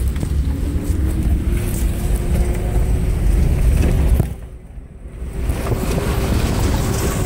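Car driving over a rough off-road track, heard from inside the cabin: a heavy low rumble with a steady engine note that rises slightly in the first couple of seconds. A little after the middle the sound drops away for about a second, then comes back at the same level.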